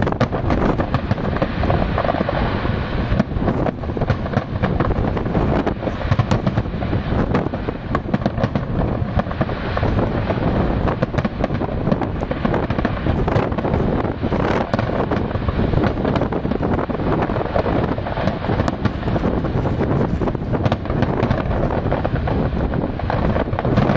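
Aerial fireworks bursting in quick succession, a continuous run of bangs and crackles, with wind buffeting the microphone.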